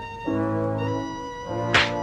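Orchestral cartoon score with brass holding sustained chords, changing chord about a quarter second in. A sudden crash hits near the end.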